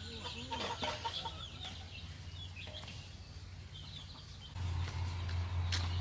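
Chickens clucking, with short arching calls near the start and small high chirps scattered throughout. A steady low hum comes in about four and a half seconds in.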